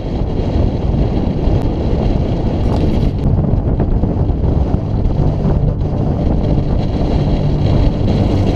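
Steady wind buffeting the microphone of a camera riding on a moving road bike, a dense low rumble with no letup.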